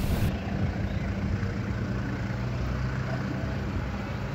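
An engine idling steadily with a low hum.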